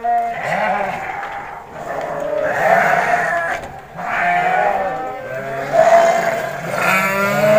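Penned sheep bleating, one long wavering bleat after another with hardly a break.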